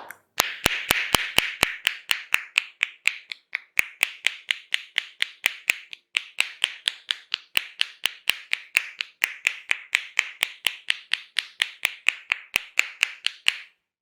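Hands tapping rhythmically on the head in an Indian head massage: sharp slapping claps, about four a second, with a short break about six seconds in, stopping shortly before the end.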